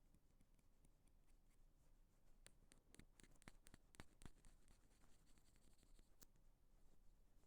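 Faint ear pick scraping and clicking against an earphone microphone, with a run of crisp scratches and clicks in the middle.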